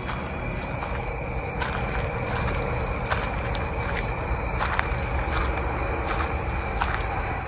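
Crickets chirping at dusk: a high, evenly pulsed chirp several times a second with steady high trilling behind it, over a low rumbling background.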